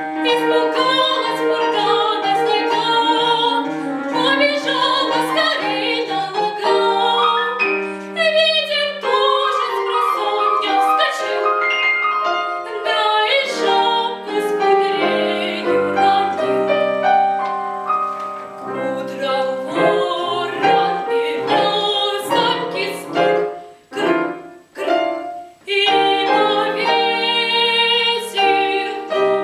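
A girl's solo classical singing voice with piano accompaniment, with a couple of short breaks about two-thirds of the way through.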